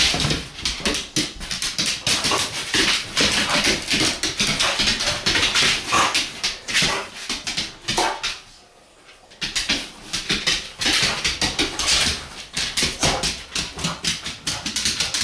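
Boxer dog chasing a laser-pointer dot: a rapid, almost unbroken patter of claws and paws scrabbling and scuffling on the floor, along with the dog's own sounds. The patter pauses for about a second and a half a little past eight seconds in.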